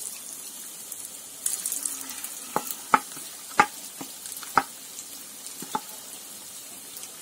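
Marinated, batter-coated chicken pieces sizzling steadily as they shallow-fry in hot oil in a nonstick pan over a low flame. The sizzle grows louder about a second and a half in, and five sharp clicks come between about two and a half and six seconds in.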